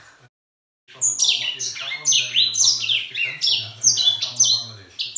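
Grey singer (a small African finch) singing a loud, fast song of short, falling whistled notes repeated in quick succession. The song starts about a second in, after a brief gap of silence.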